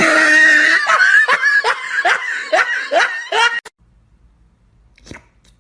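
A person laughing in a run of short, quick bursts that cuts off suddenly about three and a half seconds in.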